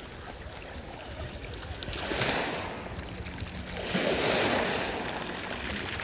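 Small Black Sea waves washing in over a pebble beach, the surf noise swelling about two seconds in and again, louder, about four seconds in.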